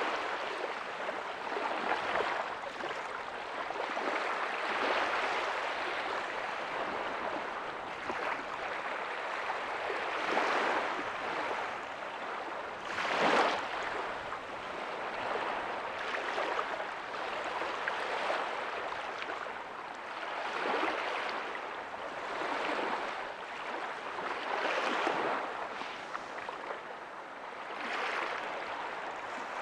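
Small ocean waves breaking on a beach and washing up the shore, in a steady hiss that swells every few seconds; one wave breaks more sharply about 13 seconds in.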